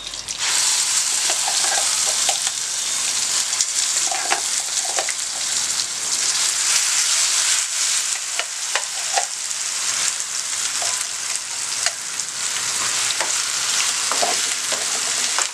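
Hot oil tempering in a kadai sizzling steadily as a wet ground onion and green chilli chutney is tipped in and fries. The sizzle swells about half a second in and holds, with scattered light taps.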